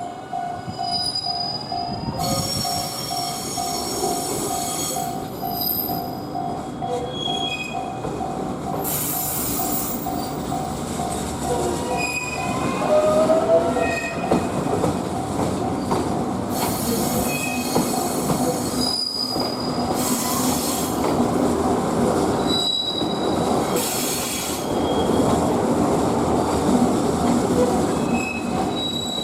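Japanese level-crossing warning bell ringing in a fast, regular ding over electric trains running on the rails, with several short bursts of high-pitched wheel squeal.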